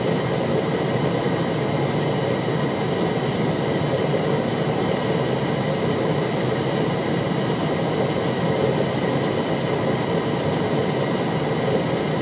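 Steady flight-deck noise of a CRJ700 airliner on final approach with flaps at 45: an even rush of airflow and engine sound with faint steady high whines, unchanging throughout.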